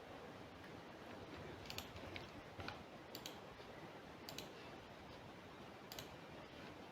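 Faint room hiss with a handful of short, scattered clicks from a computer mouse and keyboard, about six over several seconds.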